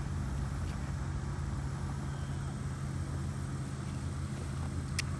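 Steady low hum of an idling engine, with one sharp click near the end.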